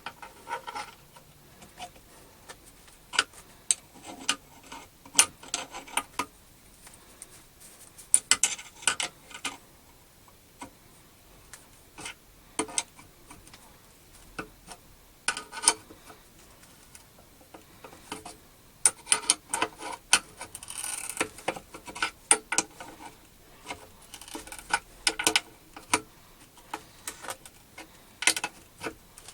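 Irregular clicks, taps and knocks of hard objects being handled, with a short stretch of scraping about two-thirds of the way through.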